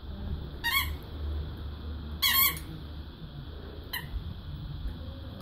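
Blue rubber squeaky dog toy squeaking as a dog bites down on it: two wavering squeaks about a second and a half apart, the second the loudest, then a short one near the end.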